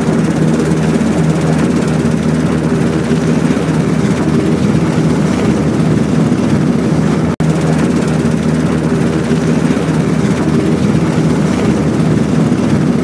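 Sikorsky HH-60W Jolly Green II helicopter running on the ground: the steady beat of its main and tail rotors over the whine of its twin turboshaft engines. There is a brief dropout a little past halfway.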